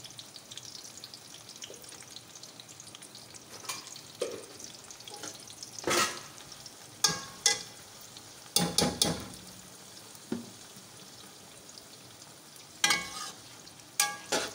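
Sliced onions sizzling in hot oil in a metal pot, being fried until golden. A metal ladle scrapes and clinks against the pot several times as the onions are stirred, loudest about six seconds in, again from about seven to nine seconds, and near the end.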